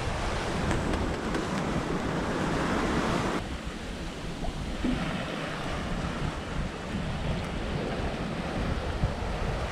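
Seawater rushing and splashing along the hull of a Hallberg-Rassy 54 sailing yacht moving fast through choppy seas, with wind buffeting the microphone. The rush turns a little duller about three and a half seconds in.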